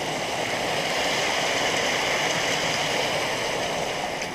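Steady rush of water flowing in a spring-fed stream.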